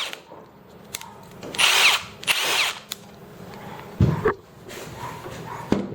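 Milwaukee M18 Fuel cordless 3/8-inch impact wrench triggered in two short bursts, the motor whine rising and falling in pitch. Two dull knocks follow later, one about four seconds in and one near the end.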